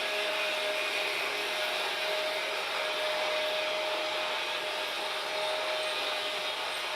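Freight train running past: a steady rushing noise of wheels on rails with a thin steady whine held throughout.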